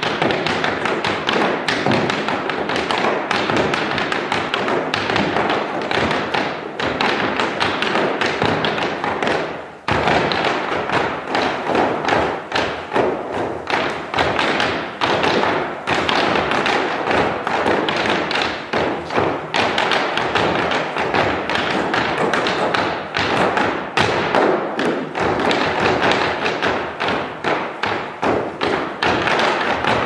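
Irish step dancers' hard shoes striking the stage floor in fast rhythmic patterns, several dancers beating in unison; the tapping breaks off briefly about ten seconds in, then starts again.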